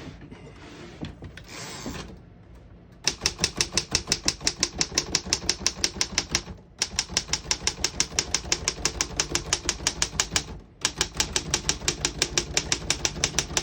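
1938 Royal KHM desktop typewriter being typed on: a fast, even run of sharp key and typebar strikes, about five or six a second, with two brief pauses. It starts about three seconds in, after some quieter clicking and handling.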